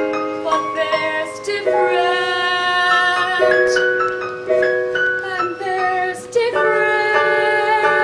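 A young female voice singing a slow, gentle musical-theatre song over instrumental accompaniment, with long held notes that change in steps.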